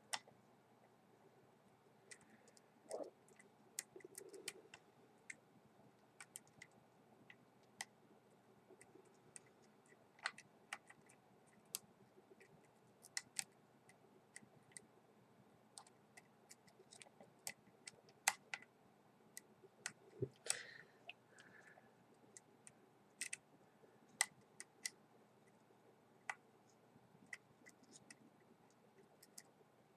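Faint, irregular clicks and ticks of a hook pick working the pins of a 6-pin pin-tumbler lock under light tension, as it single-pins through the stack.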